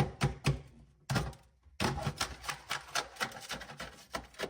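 Rapid series of sharp knocks and taps, about four a second, as a tool chips dry-ice-frozen sound deadener off the car's sheet-metal floor, with a short pause a little over a second in. The frozen deadener is brittle and breaks away under the blows.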